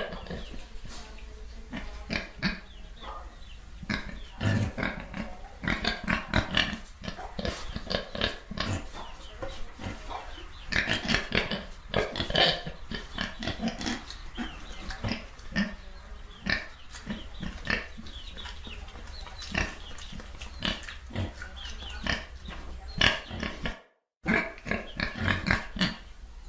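Several pigs grunting and oinking in short, irregular, overlapping calls over a low steady hum. All sound cuts out for a fraction of a second near the end.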